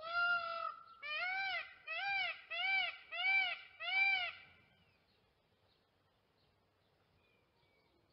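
Peafowl calling: one long call, then a run of five shorter calls, each rising and falling in pitch, about two-thirds of a second apart.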